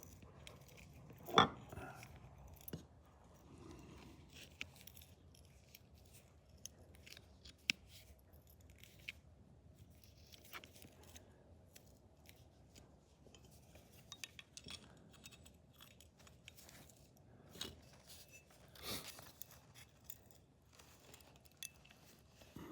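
Scattered small metal clicks, taps and scrapes of needle-nose pliers gripping and turning a loosened screw in an old shotgun's action, with one sharper knock about a second and a half in.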